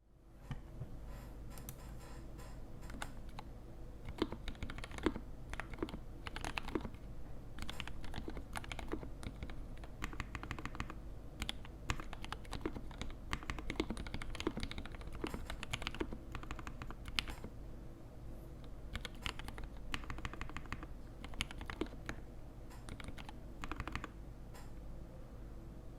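Typing on a custom E6-V2 mechanical keyboard with a brass plate, mixed switches and GMK ABS keycaps: a continuous, uneven run of deep keystroke clacks, several a second, over a steady low hum.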